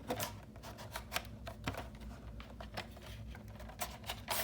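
Irregular light clicks and taps of a plastic VHS case and cassette being handled, with a few sharper knocks among them.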